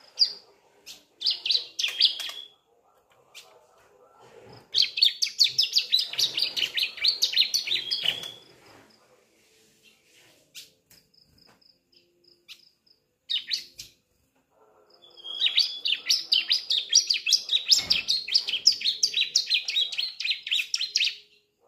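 A juvenile bar-winged prinia (ciblek) singing, a young bird still learning its song. It gives high, rapid trills of evenly pulsed notes, about six a second, in bursts: a few short ones, one of about three seconds, and one of about six seconds near the end.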